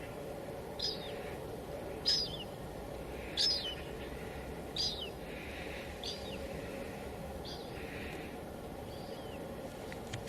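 Steady white noise with a bird calling over it: seven short, high, downward-sliding calls about every second and a half, growing fainter toward the end.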